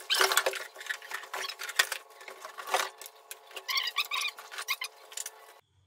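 Cardboard flaps and plastic wrapping rustling and crinkling as packed parts are lifted out of a shipping box. The crackles and scrapes come irregularly and stop abruptly near the end.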